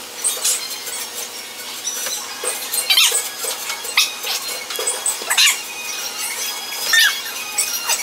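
A run of sharp, high-pitched squeaks, about one a second, each sliding down in pitch.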